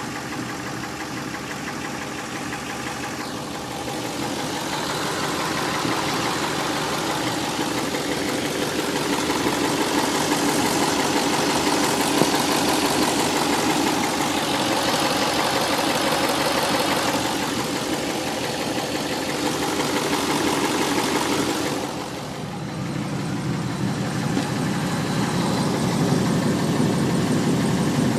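Built 5.1-litre stroker V8 in a Ford Mustang GT running with a ticking/knock noise, which the owner suspects is a bad lifter. The sound grows louder about four seconds in and dips briefly near the end.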